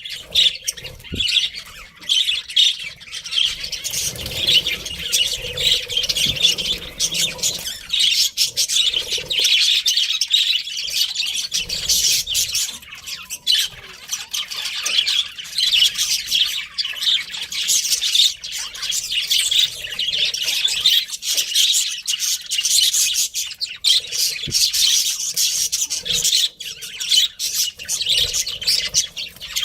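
Budgerigars chirping and chattering continuously, a dense run of rapid high chirps and squawks.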